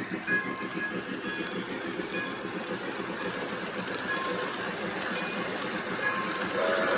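Lionel O gauge Polar Express passenger cars rolling past on three-rail track, the wheels clattering in a quick, even rhythm. A steady tone starts near the end.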